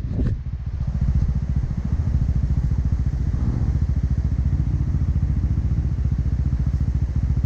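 Yamaha Grizzly ATV engine running at a steady pace while riding along a muddy trail, with a light clatter right at the start.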